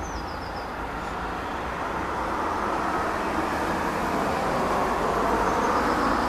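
Distant rumble of a Boeing 777-300ER's GE90 jet engines at cruise altitude, heard from the ground as a steady roar that slowly swells.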